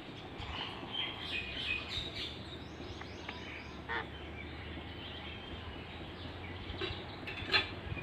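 Rose-ringed parakeets giving soft chirps and short chattering calls in the first few seconds, with a single sharper, louder call near the end.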